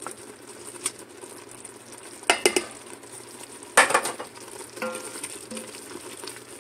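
A spoon stirring grated Parmesan into gravy simmering in a stainless steel electric-pressure-cooker pot, knocking against the pot in a few sharp clacks, a quick cluster about two and a half seconds in and the loudest about four seconds in.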